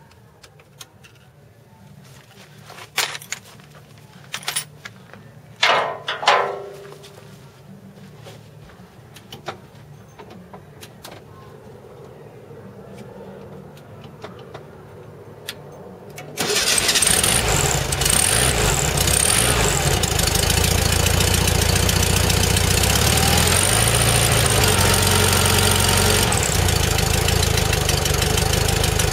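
1974 Volkswagen Beetle's air-cooled flat-four engine, fed by a freshly rebuilt carburetor, starts abruptly about halfway through and keeps running steadily. Before that, only a few scattered clicks and knocks.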